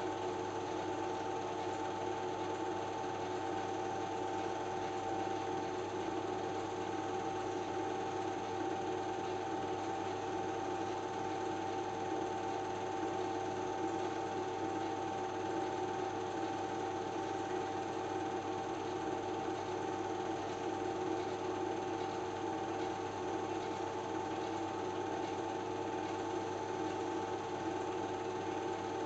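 Film projector running: a steady motor and fan whir with a constant hum and fixed whining tones, unchanging throughout.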